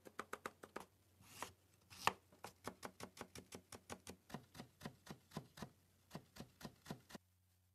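Kitchen knife mincing garlic and ginger on a cutting board: a quick run of chopping knocks at first, then about three strokes a second, stopping shortly before the end.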